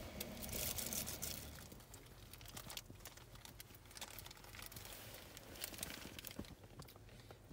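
Faint crinkling and rustling of a plastic bag, louder in the first second or so, with scattered small clicks and knocks.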